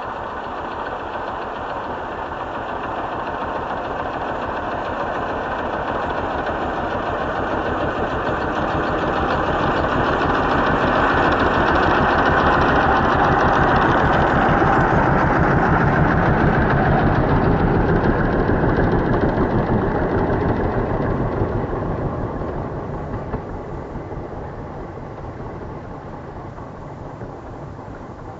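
Snowmobile engine getting louder as it approaches, passing close by about halfway through, then fading as it pulls away.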